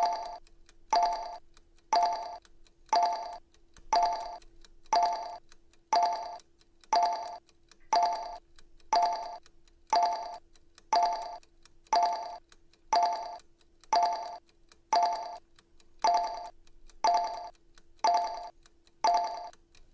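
Countdown timer sound effect: a short pitched tone sounding once every second, each starting sharply and fading within about half a second, marking each second counted down. A faint steady hum runs beneath.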